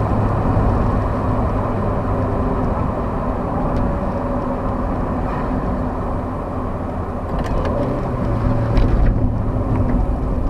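MG Rover 45/ZS's stock 1.4-litre K-Series four-cylinder engine (14K4F) running steadily, rising slightly in pitch and loudness about eight seconds in.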